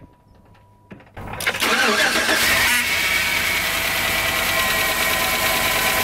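Pickup truck engine cranking and catching about a second in, then running at a steady fast idle. It starts because a known-good relay now sits in the fuel pump relay slot, which shows the original fuel pump relay was bad.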